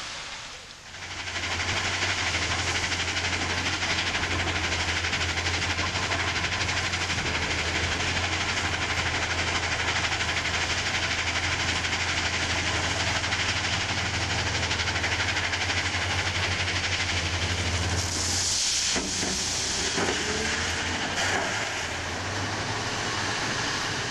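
Heavy diesel construction machinery running steadily, a low engine drone under a loud mechanical hiss. The drone drops out briefly about two-thirds of the way through, then picks up again more quietly.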